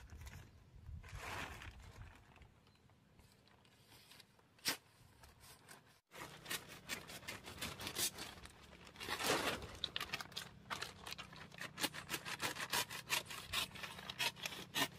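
Blue plastic tarp crinkling as it is handled, then a long knife slicing through the tarp's edge in a fast run of short, sharp cutting strokes, loudest about nine seconds in.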